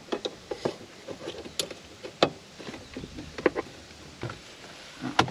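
Scattered plastic clicks and taps from hands handling a cable connector under a truck's dashboard, with a sharp click about two seconds in and another near the end.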